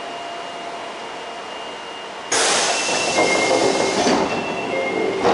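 Inside an Osaka Metro 22 series subway car running at speed: a steady rumble with faint high whines. About two seconds in, a sudden loud rush cuts in, strongest for about two seconds and staying louder afterwards, with thin high tones over it.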